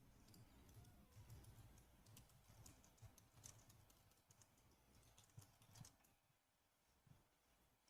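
Faint computer keyboard typing: scattered soft key clicks, thinning out after the first few seconds.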